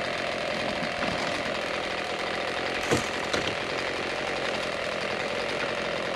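Chainsaw running steadily at high speed, with a few sharp knocks over it.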